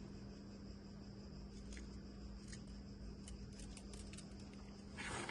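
Faint handling noises: scattered small clicks, then a brief rustle near the end, over a steady low hum.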